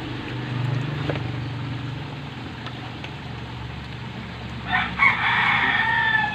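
A rooster crows once, a single long call starting near the end. It is the loudest sound here, over a steady low hum.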